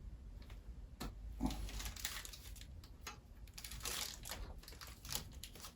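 A lathe drive belt being worked by hand onto a step of the pulley: faint, irregular rubbing and scraping with a few small clicks.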